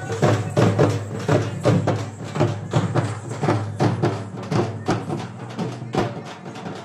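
A group of dappu frame drums beaten with sticks in a fast, driving rhythm, several strikes a second.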